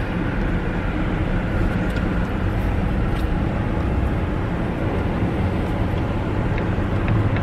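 2013 GMC Sierra 1500 pickup driving at low speed, its engine and tyre noise heard steadily from inside the cab.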